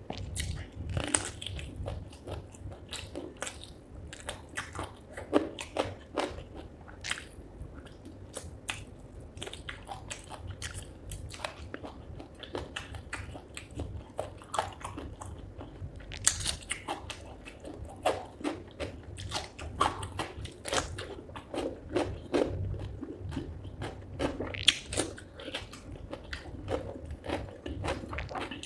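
Close-miked chewing, biting and crunching on chicken feet in curry with rice: a steady, irregular run of wet bites and small crunches.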